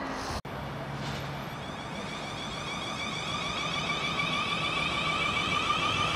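A high-pitched whine from an approaching train, steady in pitch and growing slowly louder, after a brief break in the sound near the start.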